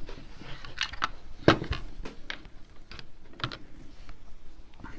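Scattered small clicks and taps of tiny screws and small parts being handled while a hard drive is fitted into a mini PC, the loudest about one and a half seconds in.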